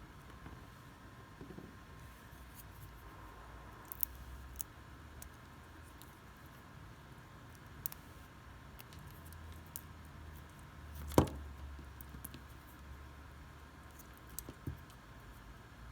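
Scattered light clicks and taps of small objects being handled, over a low steady hum, with one sharp knock about eleven seconds in.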